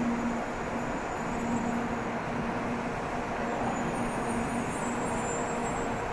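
Steady mechanical hum of shinkansen trains at a station platform, a low tone held over an even rushing noise.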